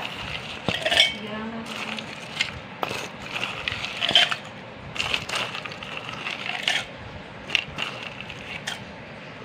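Ice cubes being dropped in one or a few at a time, with about a dozen sharp clinks and knocks at irregular intervals.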